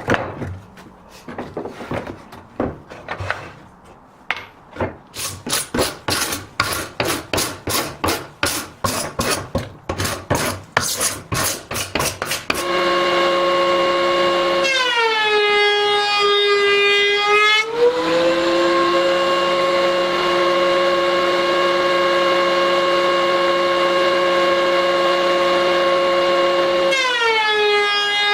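Quick, regular rubbing strokes on wood, about two or three a second, like rasping or sanding by hand. About halfway through, a power tool's motor is running steadily; its pitch drops as the tool bites into the wood and rises again as the cut eases, twice.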